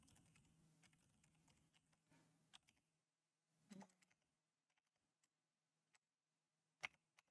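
Near silence with a few faint, scattered computer-keyboard keystrokes, the loudest a single sharp click shortly before the end.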